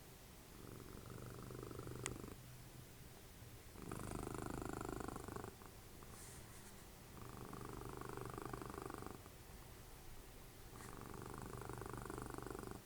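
Domestic cat purring in a slow breathing rhythm: four louder swells about every three and a half seconds, with quieter stretches between. A single sharp click about two seconds in.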